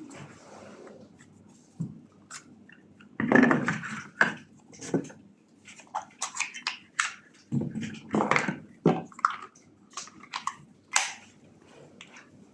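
Tool packaging being handled and opened: irregular crinkles, rustles and light knocks of cardboard and plastic, busier from about three seconds in.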